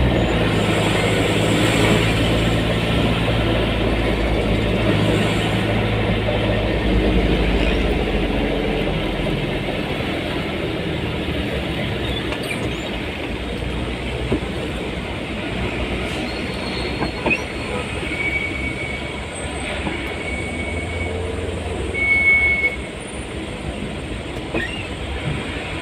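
Riding in a road vehicle through city traffic: the engine's note fades over the first several seconds, leaving steady road noise. Later come a few short, high-pitched squeals, the loudest about two-thirds of the way in.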